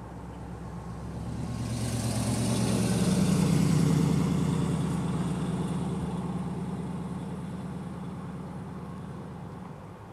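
A motor vehicle drives past: engine hum and tyre hiss grow louder to a peak about four seconds in, then fade away.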